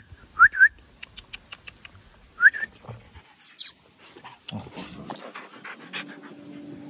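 A dog whimpering in short, high squeaks that rise sharply in pitch: a quick few at first, then one more about two and a half seconds in. Small clicks and rustling follow as it clambers against the person holding the camera.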